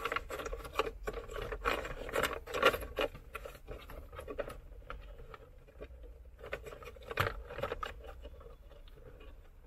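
Hands working plastic dash trim and loose wiring: rubbing and scraping with a run of small clicks and knocks as cables and plugs are pushed in behind a car head unit. There is a sharper knock about seven seconds in.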